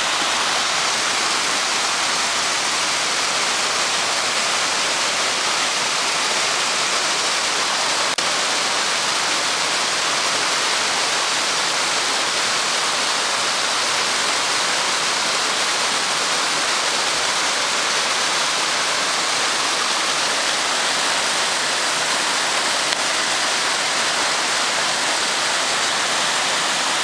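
Loud, steady rush of a rocky mountain stream cascading over boulders.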